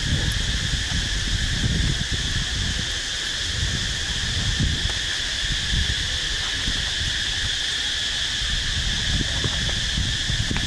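Steady high-pitched drone of insects, unchanging throughout, with wind rumbling on the microphone.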